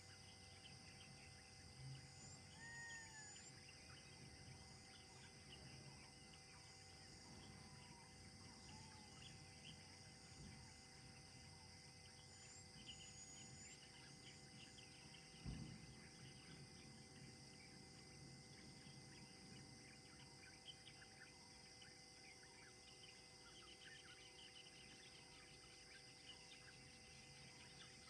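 Near silence: faint forest ambience with a steady high-pitched insect hum and a few short bird chirps, and one low thump about halfway through.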